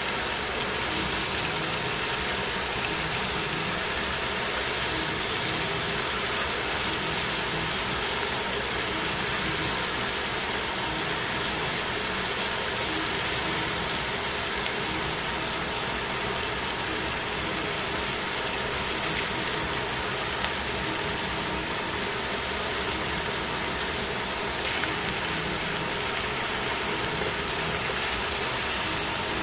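Chicken and cabbage sizzling steadily in a stainless steel frying pan, over a faint steady hum, with a few light clicks as metal tongs touch the pan.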